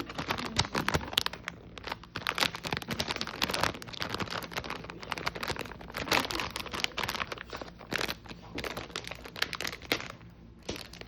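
Toy blind-box packaging being crinkled and torn open by hand, a dense run of crackling, rustling and tearing that thins out near the end.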